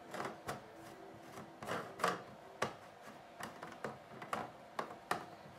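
Screw cap of a plastic diesel fuel tank being handled and screwed shut: a run of irregular, sharp plastic clicks and knocks.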